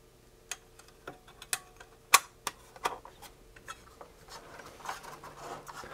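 Scattered light clicks and taps of thin sheet-metal shield covers being lifted off a radio transceiver's circuit boards and handled, with a screwdriver against the chassis. One sharper click comes about two seconds in.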